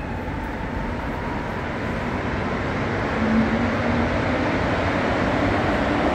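Rubber-tyred Montréal Métro train running through the station, a steady rumble that grows slowly louder, with a low hum coming in about three seconds in.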